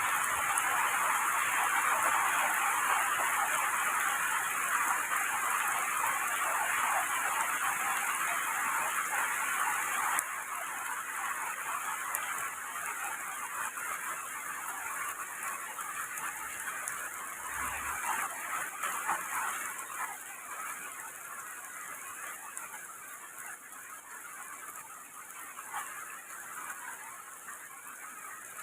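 Heavy rain falling on trees, a steady hiss. It drops in level suddenly about ten seconds in, then slowly fades.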